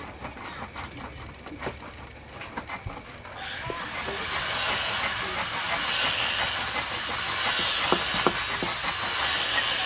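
A few faint clicks and knocks, then about three and a half seconds in a steady hiss starts and holds, with no motor tone in it.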